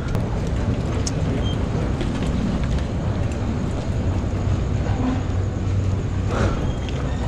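Steady low rumble of wind and tyre noise on a handlebar-mounted camera's microphone while riding a bicycle on a wet street, with a few faint clicks and rattles.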